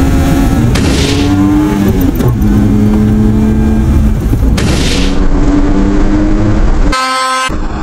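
Suzuki Carry kei truck's engine revving hard through the gears, heard from inside the cab, its pitch climbing and then dropping at each gear change. There is a short hiss about a second in and another about five seconds in. Near the end there is a brief, different buzzy tone.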